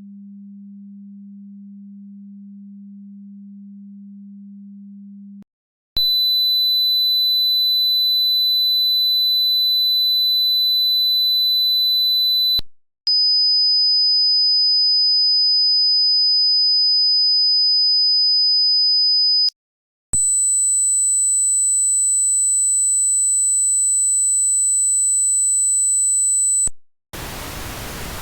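Simulated tinnitus examples played one after another: a quieter low steady hum for about five seconds, then a loud high-pitched ringing tone over a faint low buzz, then a single slightly higher steady ringing tone, then another high ringing tone over a low hum, each lasting six to seven seconds with short gaps between. Near the end a steady hiss starts.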